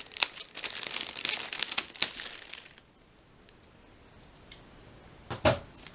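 Plastic courier mailer bag crinkling and rustling as hands tear it open, for about three seconds. Then a pause, and a brief rustle near the end.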